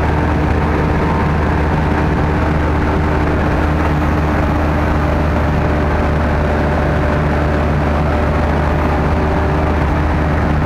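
Sherp ATV's Kubota four-cylinder diesel engine running steadily while the vehicle drives through deep mud, heard loud from inside the cab.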